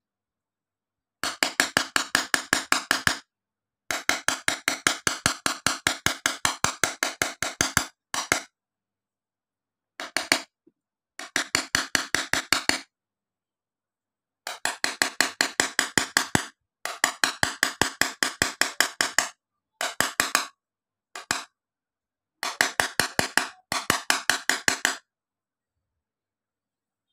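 Small hammer rapidly tapping a hand-held metal point against a glass sheet, chipping tiny frosted dots into the glass for a stipple-engraved picture. The taps come in quick runs of about eight a second, broken by short pauses.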